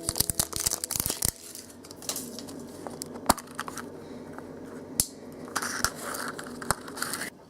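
Foil wrapper of a chocolate surprise egg crinkling and tearing, with a quick run of sharp clicks at the start and two single sharp snaps a couple of seconds apart.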